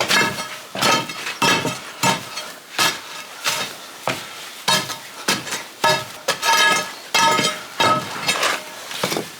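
Metal hand tool striking and scraping against stone: a run of sharp, ringing clinks, irregular, about one or two a second, as loose rubble is cleared from between old floor stones.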